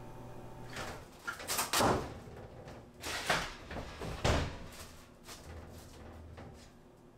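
Kitchen handling noises: a drawer sliding open and shut under a stainless-steel counter and a metal bowl being moved on the counter. There are three louder clattering scrapes about a second apart, with lighter clicks after them. A steady low hum fills the first second and stops.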